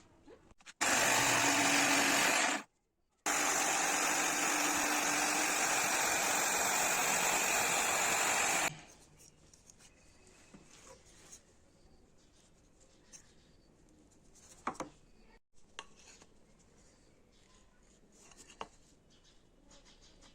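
A power tool running steadily at full speed in two stretches, the first about two seconds and the second about five seconds, each stopping abruptly. Then faint knocks and clicks of handling.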